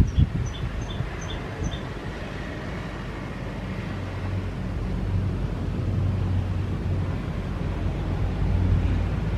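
Low rumble of a jet airliner's engines, growing louder about halfway through, with five short high chirps near the start.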